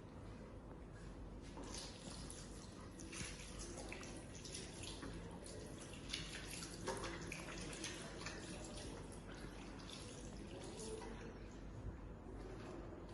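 Faint trickling and splashing water, with scattered small drips and ticks.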